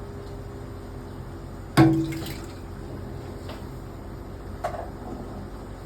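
Flood water being scooped up with a cereal bowl, with light splashing and dripping. A sharp knock about two seconds in rings briefly, and a lighter click follows later. A steady low hum runs underneath.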